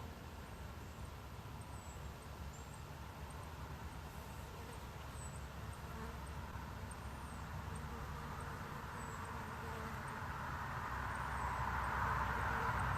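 A distant vehicle approaching: a low rumble with a rushing sound that grows steadily louder through the second half. Faint, short, high chirps sound now and then.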